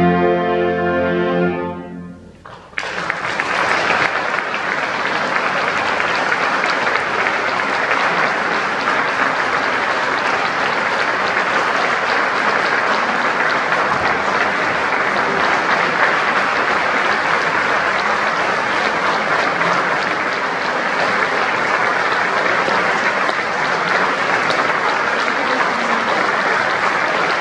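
A chamber orchestra with clarinet soloists holds a final chord, which ends about two seconds in; after a brief gap the audience breaks into steady applause that continues to the end.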